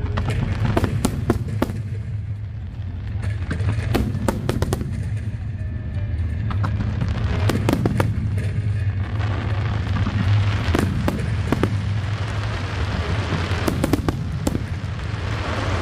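Aerial fireworks bursting in quick succession, sharp reports over a steady low rumble. A denser crackle builds in the second half.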